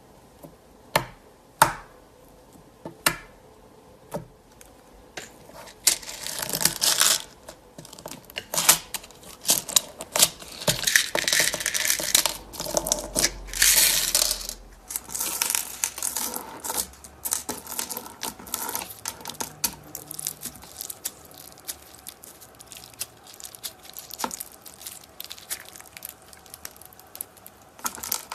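Slime being squeezed, poked and stretched by hand: a run of sharp pops and clicks, with longer crackling stretches about six, eleven and fourteen seconds in.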